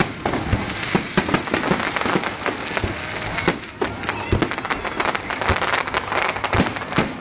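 Fireworks going off: a dense, continuous crackling with many sharp bangs close together at irregular intervals.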